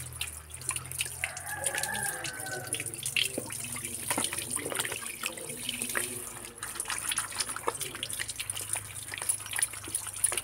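Water running from a tap and splashing over hands and onto the concrete as mushrooms are rinsed by hand, with many irregular splashes and drips.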